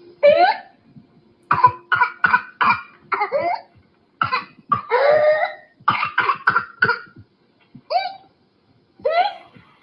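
A young child's whooping cough (pertussis) paroxysm: rapid runs of short, harsh coughs broken by rising whoops as the child draws breath in between.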